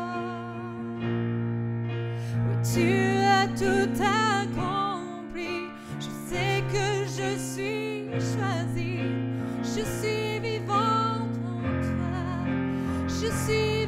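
A woman sings a slow French worship song with vibrato, accompanying herself with held chords on a Yamaha digital piano. The voice drops out briefly about a second in, leaving the piano alone, then comes back.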